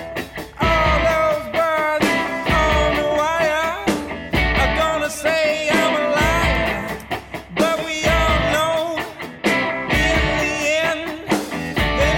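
Rock music with a singing voice and a steady, pulsing beat.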